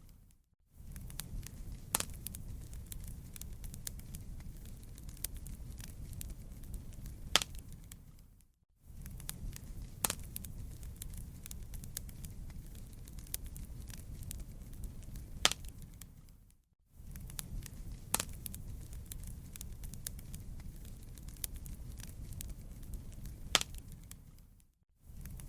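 Wood campfire crackling, with sharp pops over a low steady rumble. About every eight seconds the sound fades to silence for half a second and cuts straight back in, as a short repeating loop.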